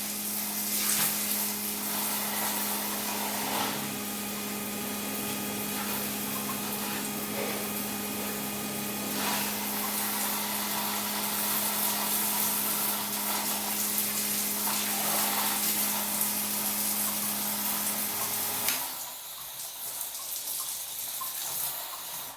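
Homemade DC water pump, built from a broken water heater's pump, running with a steady motor hum while water gushes and splashes from its outlet. The hum cuts off about nineteen seconds in, leaving softer splashing and trickling.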